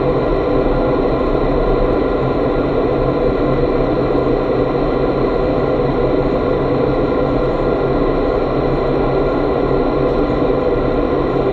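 Steady rush of air in an indoor skydiving wind tunnel's flight chamber, the tunnel's fans running constantly with a few steady tones hanging over the noise.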